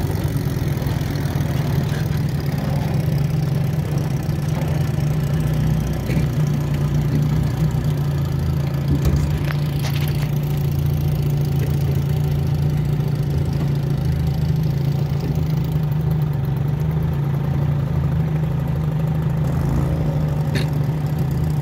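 Antique outboard motor pushing a small aluminum boat, running at a steady cruising speed with an even, unchanging low engine note.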